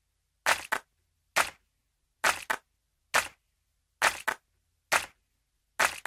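Sharp clicks repeating at a steady pace of about one every 0.9 seconds, several of them doubled, with silence in between.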